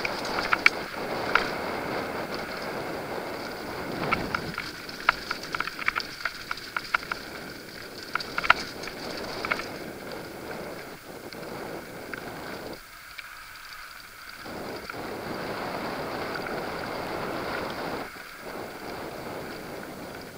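Mountain bike riding fast down a dirt and gravel trail: tyres rolling over loose ground with wind on the microphone, and many sharp clicks and rattles from the bike over rough ground in the first half.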